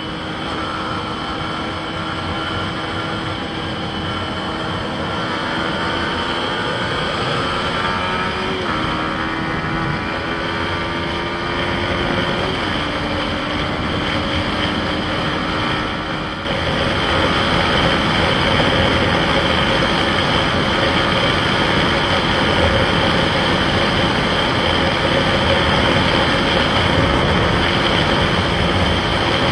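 Yamaha MT-15's 155cc single-cylinder engine running under way, with wind noise on the microphone. The engine note climbs slowly and drops twice, about nine and twelve seconds in, as the rider shifts up, and the sound gets louder from about halfway.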